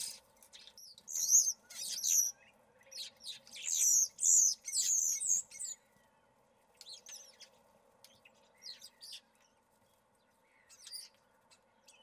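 European starlings calling: a run of high, bending whistles and chirps, dense and loud over the first six seconds, then sparser and fainter.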